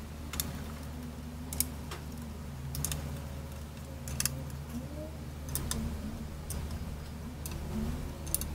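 Irregular sharp clicks and ticks of a screwdriver against the screws and metal of a motorcycle luggage rack as it is fastened down, over a steady low hum.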